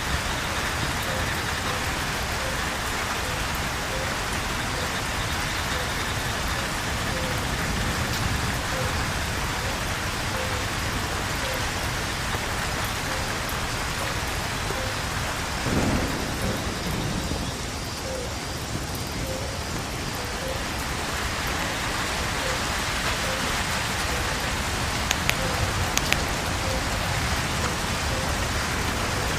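Steady heavy rain pouring down. About halfway through comes a short, low clap of thunder.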